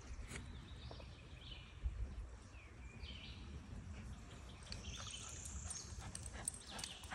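Faint outdoor ambience: a low rumble of wind on the phone microphone, with a few faint, short bird chirps.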